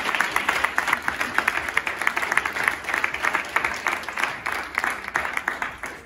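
Audience applauding: many people clapping at once, steady, then thinning out near the end.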